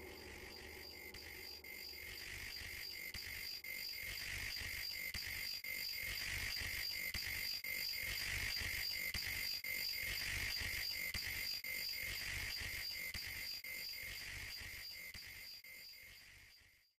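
Crickets chirping in a steady, even rhythm of about two or three chirps a second over a faint hiss. The sound swells over the first few seconds and fades out near the end.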